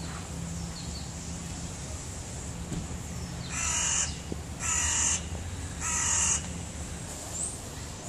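A crow cawing three times about halfway through, each harsh call lasting about half a second and about a second apart, over a steady low hum. A small bird gives a short high chirp near the end.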